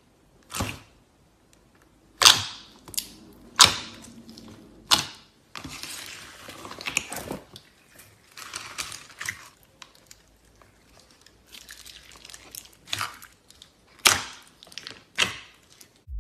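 Slime being squeezed and worked by hand: a series of sharp, wet pops with softer crackling in between.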